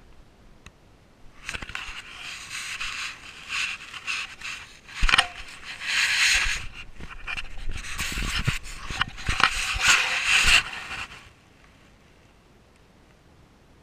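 Rustling and scraping close to the microphone in several long stretches, with a few sharp knocks among them; it stops about eleven seconds in, leaving faint hiss.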